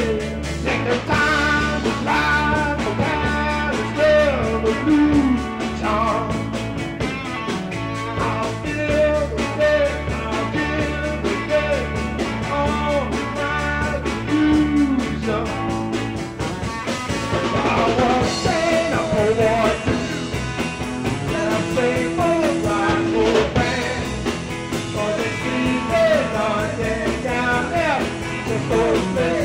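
Live rock band playing, with electric guitars, bass guitar and drums, on a lo-fi 1970s club recording.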